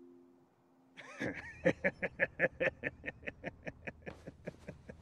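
A man laughing, starting about a second in with a fast run of short 'ha' beats, about five a second, that slow down and grow quieter.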